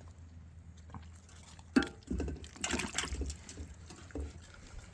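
Raccoons splashing in a water bowl: a sharp knock about two seconds in, then irregular sloshing and dripping.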